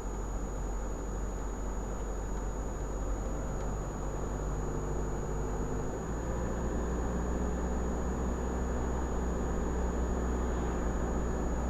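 Car engine and road noise heard from inside the car while driving: a steady low rumble, with the engine note shifting about halfway through. A thin, steady high-pitched whine sits above it.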